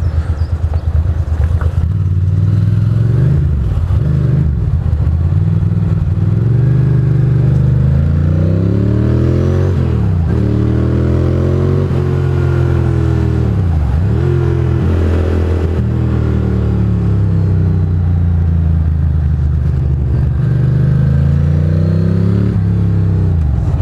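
Ducati Monster's V-twin engine under way, its pitch rising under throttle and dropping several times as the rider accelerates, shifts and rolls off in traffic, heard through a helmet-mounted microphone.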